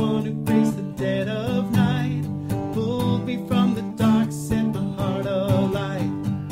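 Worship song: strummed acoustic guitar with a voice singing the melody over it.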